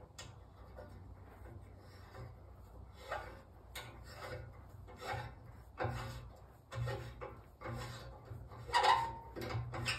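A helicoil thread insert being wound by hand into a freshly tapped, previously stripped bolt hole with its installation tool. It gives faint, irregular metal-on-metal scraping and ticking about once a second, with a brighter click near the end.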